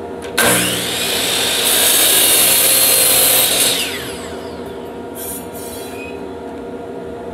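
Compound miter saw starting up and crosscutting a wooden board. The blade cuts for about two seconds, then the motor is switched off and the blade spins down with a falling whine.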